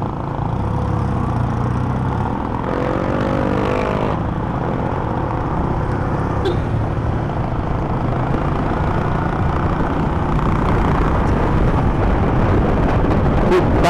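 Honda ADV150 scooter riding in city traffic: its single-cylinder engine running under a steady rush of wind and road noise on the microphone. About three seconds in, an engine note rises briefly.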